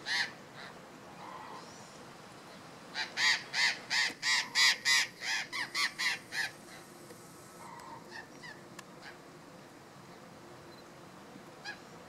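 Burrowing parrots (Cyanoliseus patagonus conlara) calling: one loud squawk at the start, then a rapid run of about a dozen squawks, three or four a second, lasting about three and a half seconds, followed by a few faint calls near the end.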